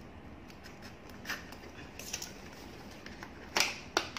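A small cardboard makeup box being opened and handled: scattered scrapes and clicks of cardboard and packaging. The loudest comes about three and a half seconds in, with another just after.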